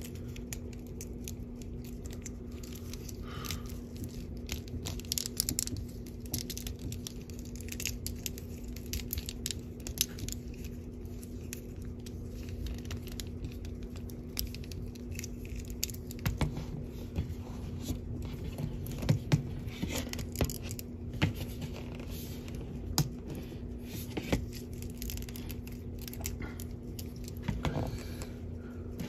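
Hands handling and posing a plastic S.H. Figuarts Thunder Gale action figure: scattered small clicks and scrapes from its joints and parts being moved, more of them in the second half, over a steady low hum.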